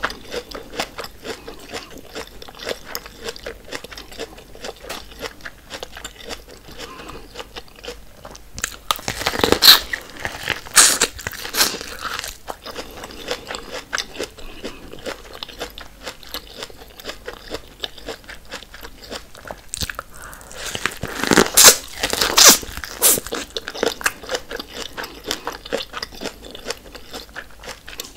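A person chewing and biting corn on the cob close to the microphone, with small crunching clicks throughout and two louder bouts of crunching bites, about nine seconds in and again just after twenty seconds.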